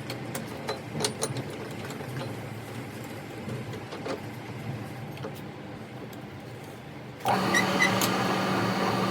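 Scattered light metal clicks and taps, then about seven seconds in a workshop machine starts suddenly and runs with a steady hum.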